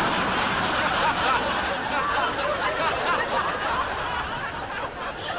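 Studio audience laughing, many voices chuckling together and easing off a little near the end.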